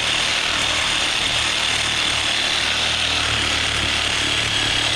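Power saw with a coarse-toothed wood-cutting blade cutting steadily through thin steel exhaust pipe. The big wood teeth make the cut slow going on metal.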